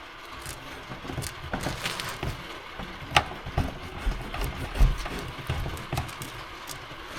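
Steady hiss of rain with scattered clicks and knocks and a few dull low thumps around the middle.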